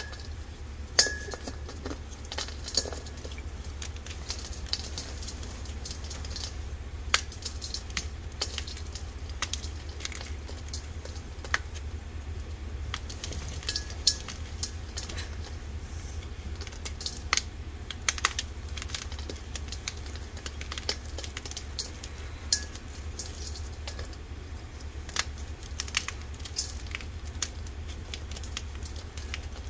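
A boiled, dyed gym chalk block being crushed and crumbled by hand in a stainless steel bowl. Irregular sharp crunches and clicks run throughout as hard chalk fragments break and clink against the metal, over a steady low hum.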